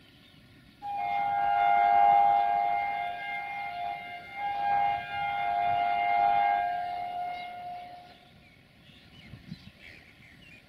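Locomotive air horn sounding a long blast of two close notes, starting about a second in, broken briefly twice, then fading out after about seven seconds.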